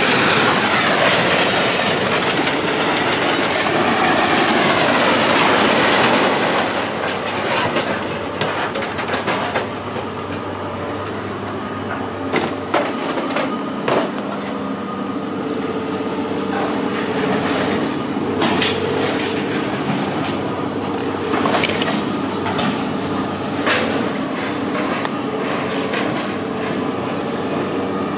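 A loud rushing, grinding noise for about the first six seconds, then a heavy engine running steadily. Irregular sharp metal clanks and bangs sound over the engine, the kind made as scrap metal is moved and dropped.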